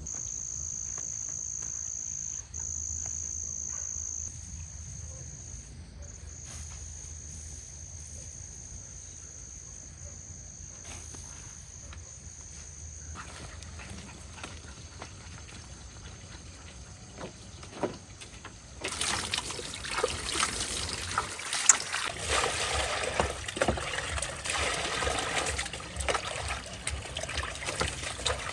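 A steady, high-pitched insect trill for roughly the first half. About two-thirds of the way in, a louder stream of trickling, splashing water sets in suddenly.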